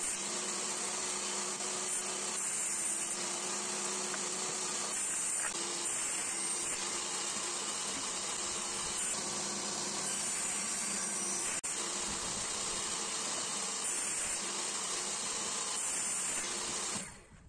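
Benchtop table saw running steadily while a plywood drawer base is cut on it, an even whirring hiss that stops abruptly near the end.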